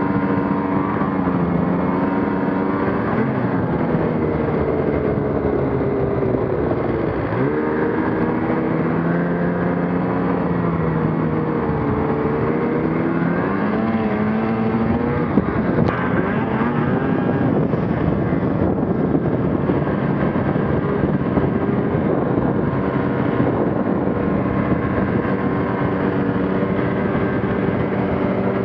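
Ski-Doo Gen 4 850 two-stroke snowmobile engine running under way, its pitch rising and falling again and again with the throttle. About seven seconds in it drops sharply and climbs back, and there is one short click at about sixteen seconds.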